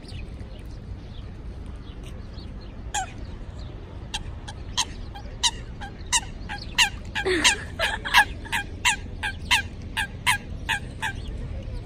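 A water bird calling in a rapid run of about twenty short, sharp, high-pitched notes, about three a second, starting about four seconds in after a single call and stopping shortly before the end, over a steady low background noise.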